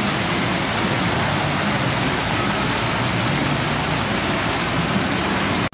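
Water from an indoor artificial-rock waterfall pouring steadily into a shallow pool.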